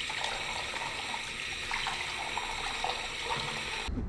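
Tap water running into a sink, splashing over a camping cook pot being rinsed under the stream. The sound cuts off suddenly near the end.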